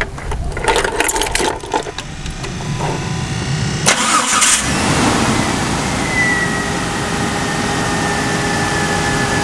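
Car engine remote-started: a few clicks of keys and key fob, then the starter cranks briefly and the engine catches about four seconds in, settling into a steady run with a high whine that slowly falls in pitch. The cranking is healthy: the battery dips only to about 9.8 volts.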